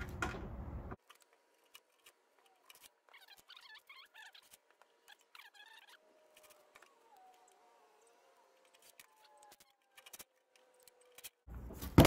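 Near silence with scattered faint clicks of handling. A second of steady background noise cuts off abruptly at the start.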